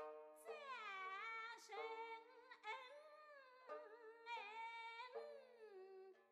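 Faint background music: a wordless melody that swoops up and down in phrases, which PANN takes for humming, over steady held low notes.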